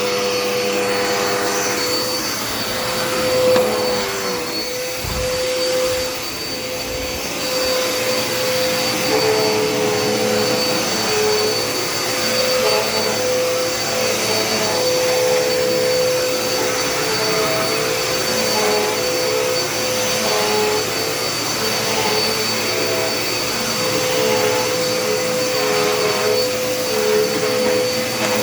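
Dirt Devil Endura Reach upright vacuum running steadily, its motor whine dipping slightly in pitch now and then as it is worked over the floor. Two brief low thumps come about five and seven seconds in.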